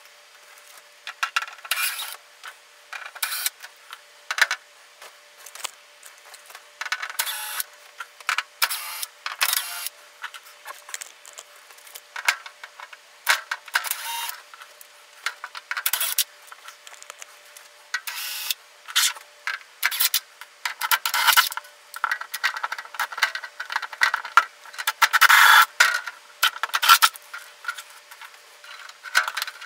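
Irregular metallic clinks, scrapes and rattles as screws are backed out of the CR-10S Pro 3D printer's sheet-metal cover with a cordless drill-driver and the loose screws and panel are handled, with a longer rattling stretch near the end.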